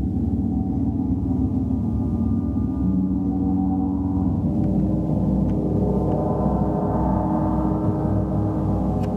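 Large gongs ringing in a continuous wash of many overlapping tones, with no single strike standing out. The higher overtones swell about halfway through.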